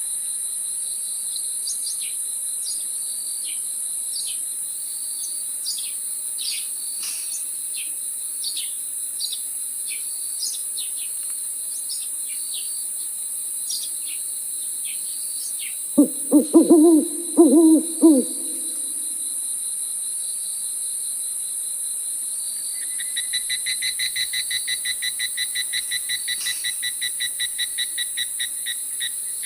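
Owl hooting: a quick run of about five low hoots about midway, the loudest sound, over a steady night chorus of insects with a high hiss and a cricket's steady tone. Short falling chirps repeat through the first half, and a rapid pulsed trill of several pulses a second sets in near the end.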